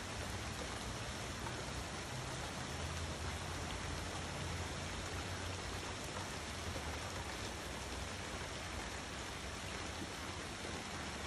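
Steady rain falling, an even hiss of drops throughout, with a faint low rumble underneath.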